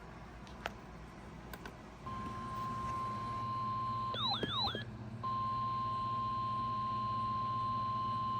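NOAA Weather Radio warning alarm tone: a single steady high tone that comes on about two seconds in over a low radio hum. It marks a new warning about to be read. Near the middle the tone is broken for about a second by a short warbling electronic chime, then resumes. Two faint clicks come before it.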